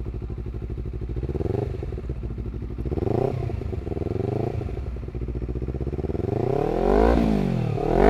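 Honda CBR250RR motorcycle engine through a Villan MV2 carbon forged full-system exhaust, with no dB killer fitted, idling and revved in several short throttle blips. The two highest revs come near the end.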